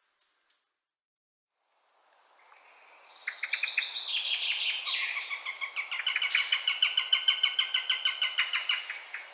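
Bird calling: after a short silence, a fast run of rapidly repeated notes fades in about two seconds in and carries on densely, loudest near the end, then tails off.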